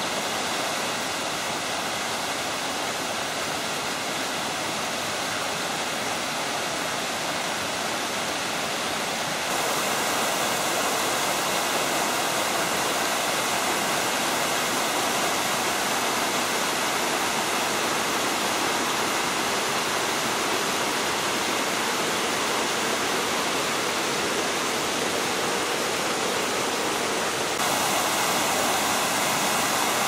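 Small mountain waterfall and stream running over rocks: a steady rush of water that gets slightly louder about ten seconds in and again near the end.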